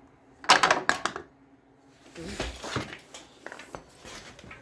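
Metal parts and tools clattering as they are handled and set down: a loud burst of clanks with a ringing edge about half a second in, then scattered lighter clinks and knocks.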